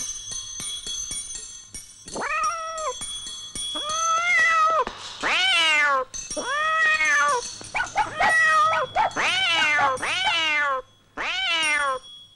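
Cat meowing over and over, about eight drawn-out meows that each rise and fall in pitch. Light tinkling music plays alone for the first two seconds and stays faintly under the meows.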